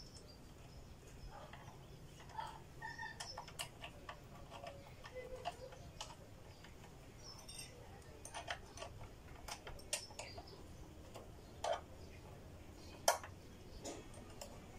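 Faint, irregular clicks and light taps scattered throughout, the sharpest one about 13 seconds in, with a couple of short chirps early on.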